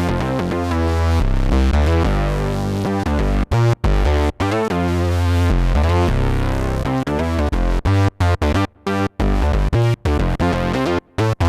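Arturia MatrixBrute analog synthesizer playing a patch: a run of changing, bass-heavy notes. In the second half the notes cut off sharply, leaving short choppy gaps.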